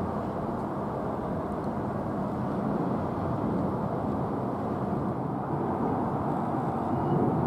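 Steady low rumble of outdoor background noise, with no bird calls.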